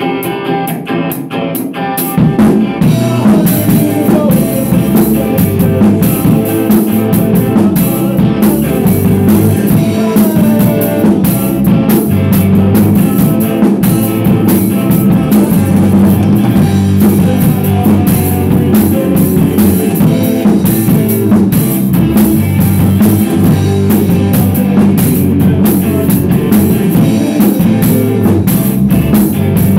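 Rock band playing a new song live at rehearsal, with guitar and drum kit together. The full band comes in louder about two seconds in and then keeps a steady rock beat.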